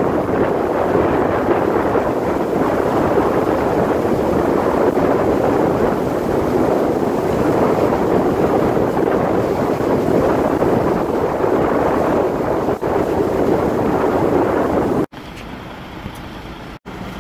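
Steady rush of wind and water aboard a moving boat on open water, with wind on the microphone. About fifteen seconds in it cuts off abruptly to a much quieter background hum.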